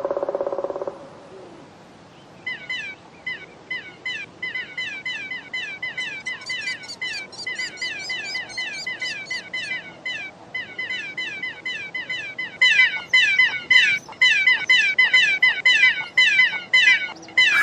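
Baby birds chirping rapidly and without let-up, each chirp a quick falling high note, with short breaks, louder in the second half. A short low buzzing note sounds in the first second, before the chirping starts.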